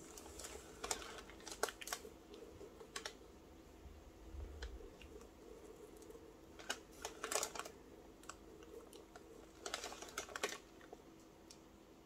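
Small clicks and scrapes of a wooden craft stick worked along the edge of a silicone resin mould, in a few short clusters.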